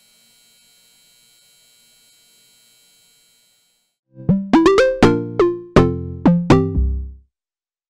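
Short electronic logo jingle: about a dozen quick synthesizer notes over some three seconds, each sliding down in pitch as it starts, ending on low bass notes. Before it, a faint steady hiss.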